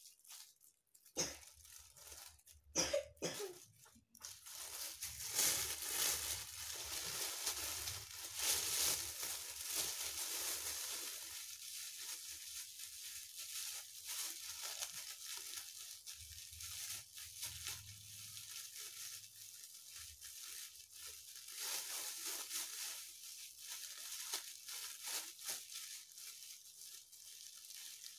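Plastic bags rustling and crinkling in an uneven crackle for most of the stretch. A child coughs near the start.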